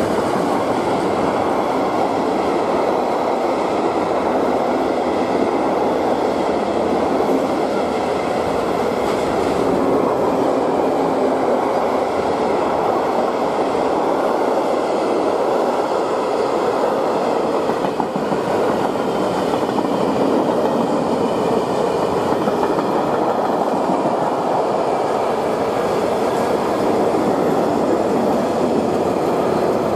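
Freight train of covered goods wagons rolling past on the near track at steady speed: a continuous loud noise of steel wheels running on the rails.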